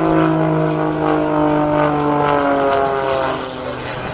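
Aerobatic biplane's propeller engine running at high power. It is a loud, steady drone whose pitch falls gradually, with a clear drop about two and a half seconds in.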